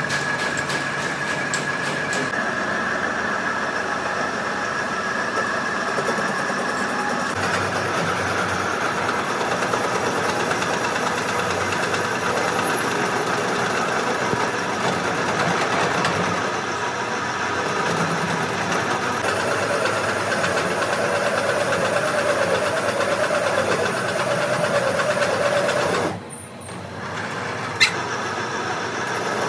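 Heavy machinery running steadily with a high whine, then a wavering tone, dropping off briefly near the end before a single sharp click.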